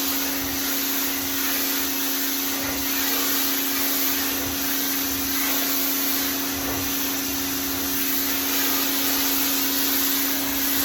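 Pressure washer running steadily, spraying water through a car wash tip onto an outdoor rug. Its steady hum and loud hiss of spray go on unbroken.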